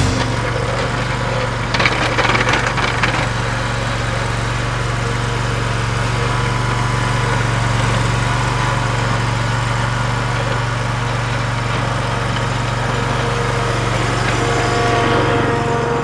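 Ventrac SSV sidewalk snow vehicle's engine running steadily as it pushes snow with its front plow blade, with a brief burst of noise about two seconds in.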